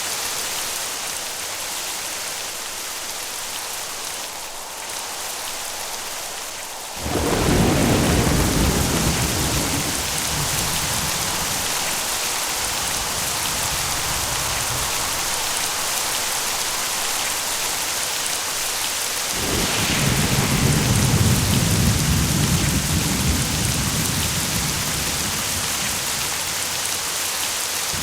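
Steady heavy rain with two rolls of thunder: a sudden loud crack-and-rumble about a quarter of the way in that fades over several seconds, then a second long rumble past the halfway mark.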